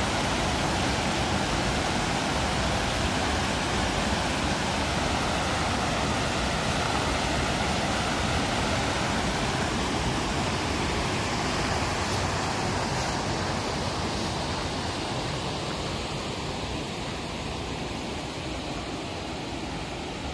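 Water pouring over a small concrete spillway, a steady rushing that grows fainter over the second half.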